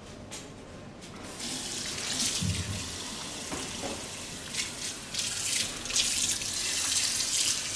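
Tap water running into a sink, starting about a second in, a steady hiss with uneven splashes.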